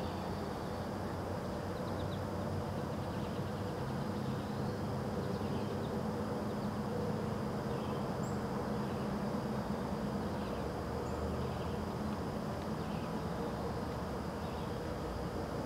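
Outdoor dawn ambience: a steady low hum, with a faint, steady high insect drone and a few faint, scattered bird chirps.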